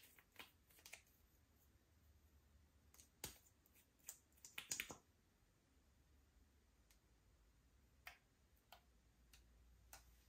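Faint scattered clicks and small pops of slime being worked by hand, with a quick cluster of them about halfway through.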